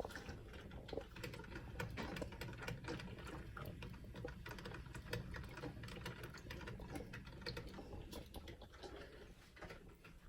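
Coffee maker brewing: a dense, irregular crackling and sputtering over a steady low rumble.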